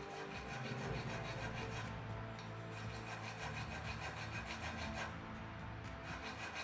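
A thin wooden stick scraping around the rim of a vase's base in rapid, repeated strokes, a dry rasping scratch.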